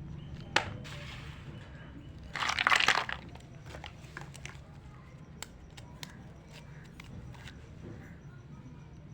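Plastic toy packaging crinkling in one loud burst a little over two seconds in, with scattered small clicks of tiny plastic toy kitchen pieces being handled.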